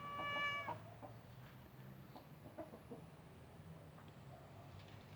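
A house cat's meow, one long call that ends abruptly under a second in. Faint scattered ticks and light scrapes follow.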